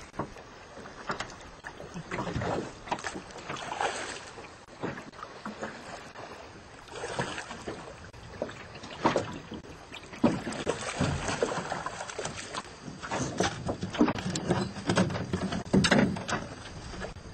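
Water splashing and knocking around a small aluminium fishing boat, irregular and louder in the second half, with wind on the microphone.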